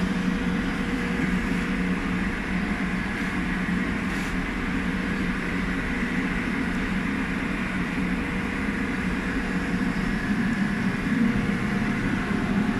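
Heat cannon's fan blowing steadily while it heats and dries a chiller compressor: an even rushing noise with a low hum and a faint steady tone.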